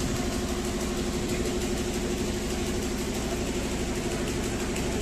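An engine running steadily at idle, an even low hum that does not change.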